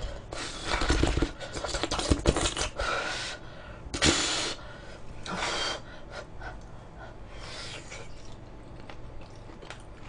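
A person eating grilled pork belly close to the microphone: wet chewing and mouth clicks for the first few seconds, then a loud, sharp breath about four seconds in and a smaller one a second later.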